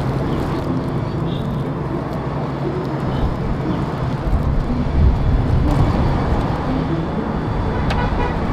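Steady low rumble of road traffic, swelling about five seconds in as a vehicle goes by.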